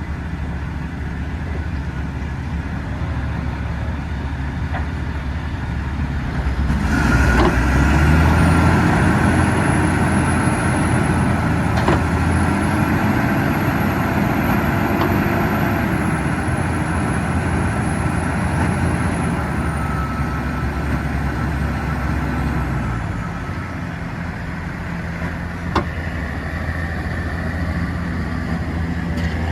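Heavy truck diesel engine working hard under load while pulling through mud: a steady low rumble that grows louder about seven seconds in, with a high whine over it, then eases back down after about twenty seconds. A single sharp click near the end.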